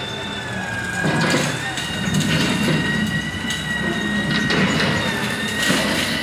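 Kobelco hydraulic excavator working under load, its engine running with a steady high hydraulic whine, as the bucket breaks into a concrete wall and floor slab. Concrete cracks and rubble falls in repeated crunches from about a second in.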